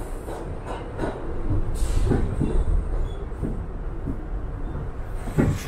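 New York City subway train running: a steady deep rumble with irregular clattering knocks from the wheels and car, a few a second, and a louder knock near the end.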